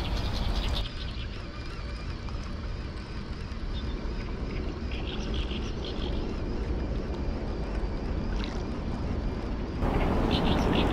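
Open riverside ambience: a steady low rumble with a few short bird chirps about halfway through and again near the end.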